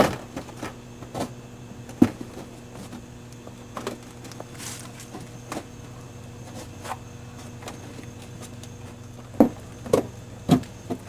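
A few scattered clicks and light knocks over a steady low hum, typical of handling the plastic fender splash shield and tools in a car's wheel well. There is one knock at the start, another about two seconds in, and a cluster near the end.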